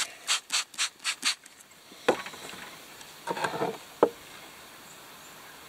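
Hand trigger spray bottle squirted about five times in quick succession, hissing as it wets a rock. Then a few knocks and a short scrape as the wet rock is handled on a wooden table.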